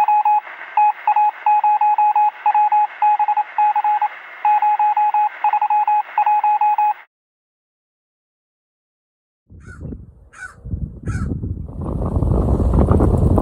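A single-pitch beep keyed on and off in short and long pulses, like Morse code, that stops about seven seconds in. After a couple of seconds of silence, a few brief chirps and then wind buffeting the microphone, growing louder toward the end.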